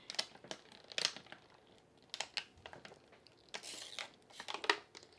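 Quiet table and eating sounds: scattered sharp clicks and smacks, with a brief crinkling rustle about three and a half seconds in.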